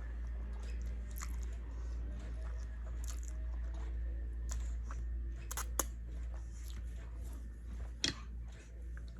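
Close-miked mouth sounds of someone chewing food, with many small wet clicks over a steady low hum; two sharper clicks stand out near six and eight seconds in.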